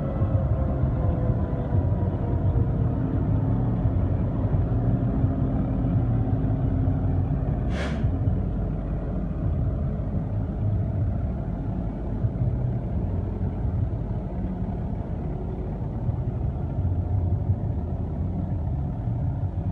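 Pierce fire engine's diesel engine idling, a steady low rumble. A single sharp click comes about eight seconds in.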